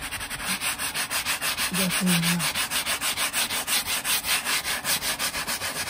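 Small scrub brush with short bristles scrubbing foamy leather cleaner into a leather car seat, in quick, even back-and-forth strokes at about eight a second.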